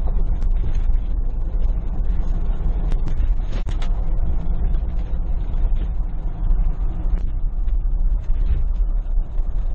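Cabin noise of a 2021 Ford Bronco driving on a dirt road: a steady low rumble of tyres and drivetrain, with scattered knocks and rattles as it goes over bumps.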